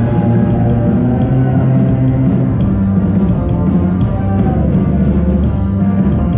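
Rock music from a band recording plays steadily, with sustained pitched instruments over a strong bass line.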